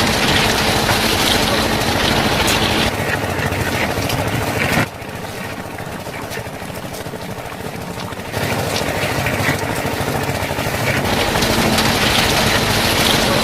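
Engine running steadily, like a tractor idling. It drops quieter for about three seconds in the middle, then comes back up.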